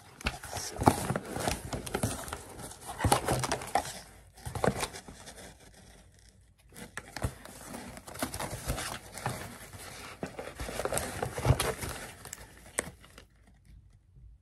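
Cardboard box and paper and tissue packaging being handled as makeup items are taken out: irregular rustling and scraping with sharp clicks and taps, broken by short pauses and dying down near the end.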